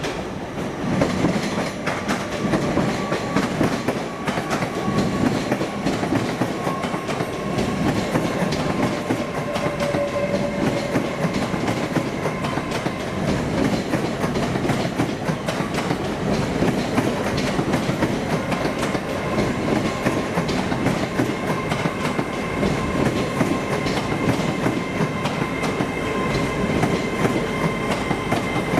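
A train running on the track, with continuous rumble and many rapid wheel ticks. Thin steady whines sit above it, with a brief lower tone about ten seconds in.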